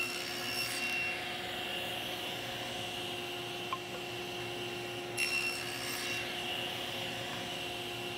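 Table saw running steadily, with its blade cutting a shallow groove in small walnut and maple boards fed over it with a paddle push block. Two short cutting passes, one at the start and one about five seconds in, each about a second long.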